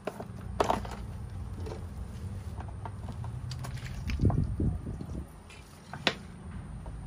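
Plastic clicks and knocks from a brush cutter's fuel tank being opened and its fuel line and filter pulled out through the filler: a click about a second in, a duller knock near four seconds and another click near six seconds. A steady low hum runs underneath.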